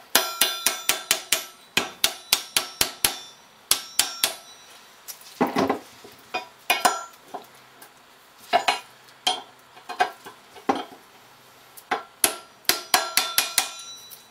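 Hammer blows on a steel punch, driving a stuck bearing off the shaft of a Lucas ACR alternator rotor. The metal strikes ring, coming in quick runs of about five a second, with pauses and a few single blows in between.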